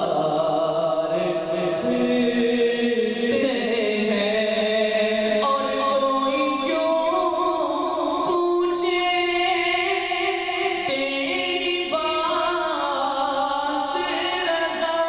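A man singing a naat into a microphone, holding long drawn-out notes that glide from pitch to pitch.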